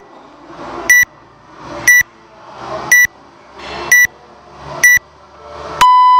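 Workout countdown timer beeping once a second: six short high beeps, then a long, lower beep starting near the end that signals the start of the workout.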